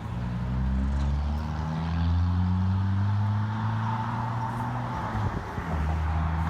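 A motor engine running steadily, its pitch rising slowly as it speeds up, breaking off about five seconds in and picking up again near the end.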